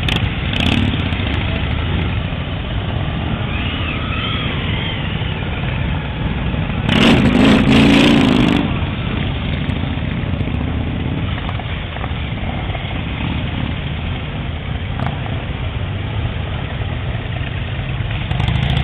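Motorcycle engines running as a line of bikes rides slowly past one after another, a steady low rumble. It gets louder for about a second and a half around seven seconds in.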